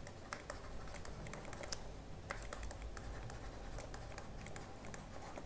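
Faint, irregular clicks and light scratches of a stylus writing on a pen tablet.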